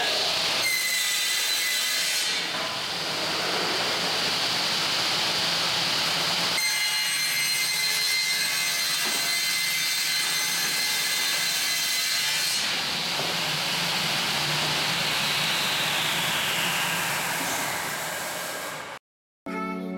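Elcon vertical panel saw cutting an OSB sheet: a loud, steady cutting noise with a high whine from the blade, which stops abruptly near the end.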